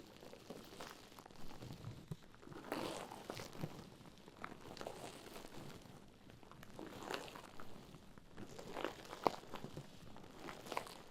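Mesh bath pouf rubbed and squeezed close to the microphone as an ASMR trigger: soft, irregular scratchy crinkling strokes that come in small clusters every second or two.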